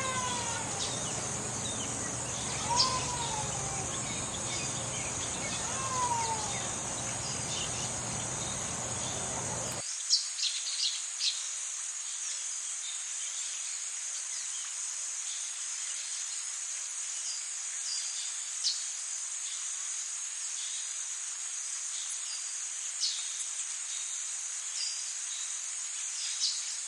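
Steady high-pitched chorus of insects such as crickets, with short bird chirps scattered through it. Three falling calls sound in the first six seconds, and a low background hum cuts out suddenly about ten seconds in.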